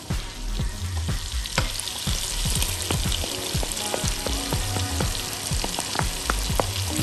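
Shallots and button mushrooms frying in oil and butter in a pot: a steady sizzle with many sharp crackles and pops of spitting fat.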